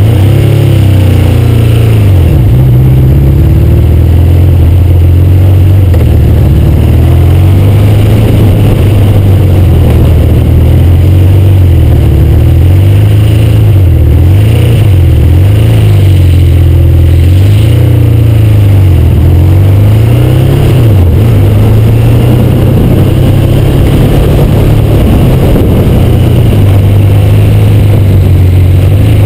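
Honda CBX motorcycle engine running just after a jump start, its pitch rising and falling repeatedly as it is revved.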